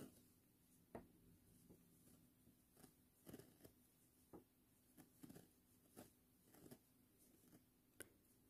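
Near silence with faint, scattered small clicks and rustles, about a dozen over several seconds: a crochet hook working cotton thread.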